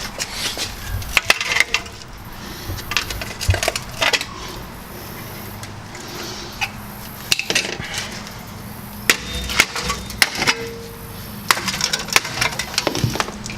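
Tin snips cutting and bending a thin, rusty sheet-metal brake dust shield: irregular sharp metallic snips, clinks and crunches, in clusters with a short lull in the middle.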